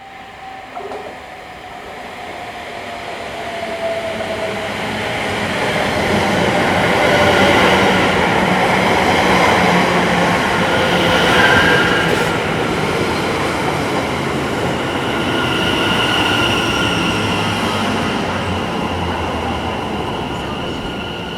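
Electric passenger train running on the rails, building to a loud rumble over the first several seconds and then holding steady, with high wheel squeal over it.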